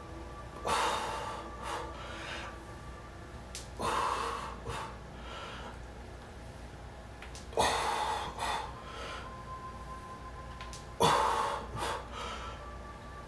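A man breathing hard while exercising: four loud, hissing exhales about three and a half seconds apart, each followed by one or two shorter breaths, in rhythm with lunge repetitions.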